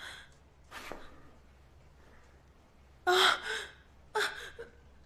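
A woman's startled gasps: a short breath about a second in, then two brief voiced gasps around three and four seconds in.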